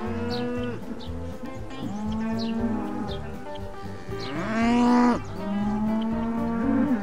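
Black Angus cows mooing, a series of long calls one after another. The loudest moo comes about four and a half seconds in.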